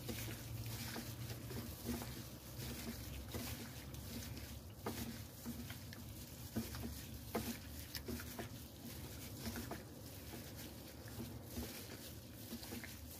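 Cut chicken pieces being mixed by a hand in a plastic glove in a thick oyster-sauce and soy marinade: soft wet squelches and irregular small clicks as the pieces are turned and squeezed. A low steady hum runs under it.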